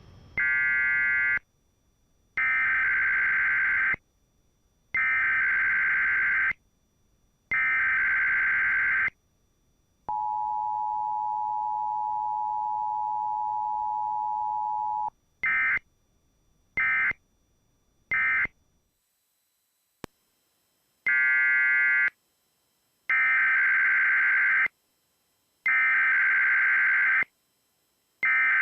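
Emergency Alert System tones from an AM radio broadcast: several one-to-two-second bursts of buzzy digital SAME header data, then the steady two-tone EAS attention signal for about five seconds. Three short end-of-message bursts follow, and after a brief gap with a click, another run of header bursts begins, the start of the next alert.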